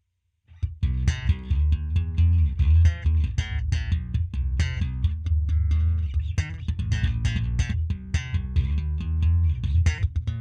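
Electric bass guitar played through its new handwired three-band EQ onboard preamp: a busy run of plucked notes with sharp, bright attacks over a strong low end, starting about half a second in.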